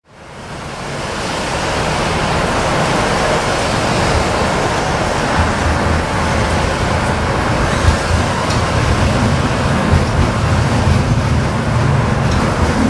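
Running noise heard inside a Tatra T4D tram on the move: a steady rumble of wheels on rails and running gear, fading in over the first second. A low hum grows stronger in the second half, with a couple of short knocks.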